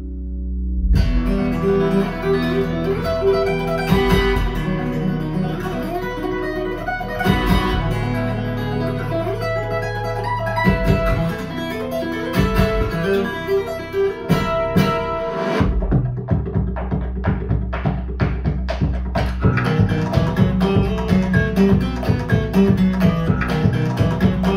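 Music with plucked guitar over a deep bass line, played through KEF LS60 Wireless speakers. The full sound comes in about a second in, and about two-thirds of the way through it turns to a busier, more rhythmic part.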